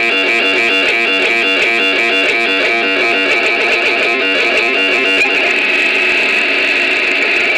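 Boombox Synth 1 synthesizer playing a fast repeating sequence of short, plucky notes with no deep bass. About five seconds in the stepped pattern smears into a steadier sustained tone.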